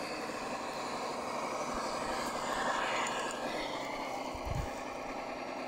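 Electric motor and gearbox of an RC scale crawler whining as it drives, swelling and sweeping in pitch around the middle with the throttle. A short low bump about four and a half seconds in.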